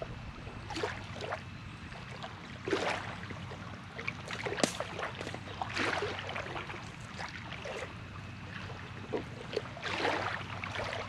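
Irregular rustling and scraping of a rope line being hauled in by hand from a riverbank, the hook sliding over mud on the bottom, with a steady low hum underneath.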